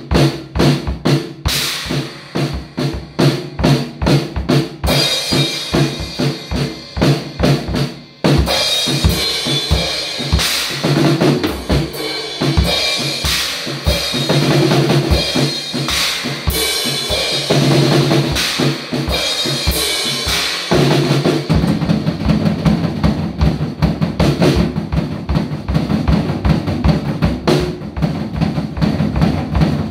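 Drum kit played to a steady rock beat, with bass drum, snare and cymbal strokes, over other music. About eight seconds in the playing drops away briefly, then a denser, busier section starts.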